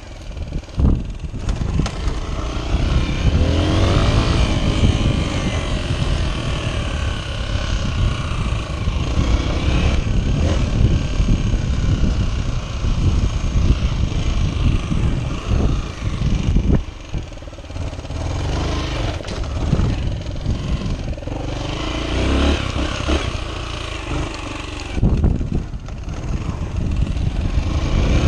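Honda XR 125's single-cylinder four-stroke engine running on an off-road ride, its revs rising and falling repeatedly with the throttle and easing off briefly a couple of times.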